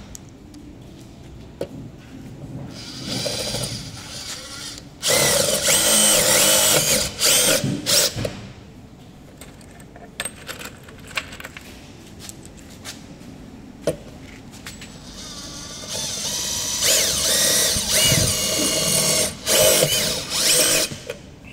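Makita TD002G 40V XGT brushless impact driver driving hex washer-head screws into galvanised steel sheet. It runs in two main loud bouts, about five seconds in and again from about sixteen seconds in, each a few seconds long with short stops, the motor pitch rising and falling as the screws are driven.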